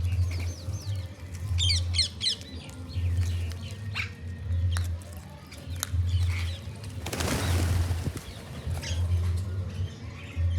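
Birds chirping in quick rising-and-falling notes over the first few seconds, then scattered calls, with a brief rushing burst about seven seconds in.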